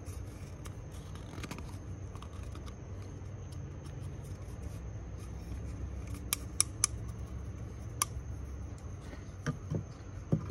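Handling of small hard parts: a few sharp light clicks past the middle and a couple of softer knocks near the end, over a steady low hum.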